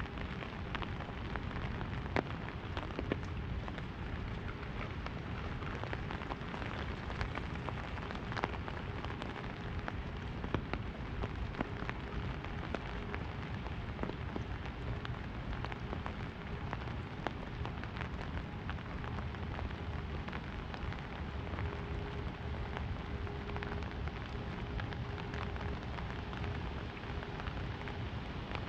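Rain falling on an open umbrella held overhead: a steady hiss dotted with many sharp drop hits.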